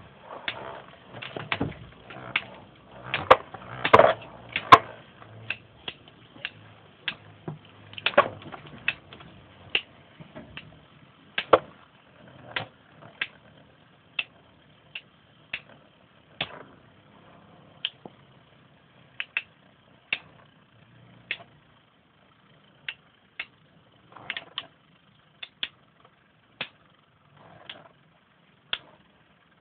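Two metal-wheeled Beyblade spinning tops clashing in a plastic stadium: sharp clacks as the metal wheels strike, rapid and loudest in the first dozen seconds, then spacing out to about one a second as the tops orbit and slow.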